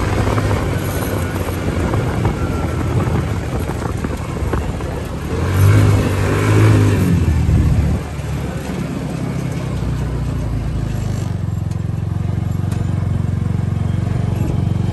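Hammerhead 150 go-kart's small engine running while driving over gravel. It climbs in pitch and gets louder for a couple of seconds past the middle, then settles to a steadier, lower drone as the kart slows to a stop.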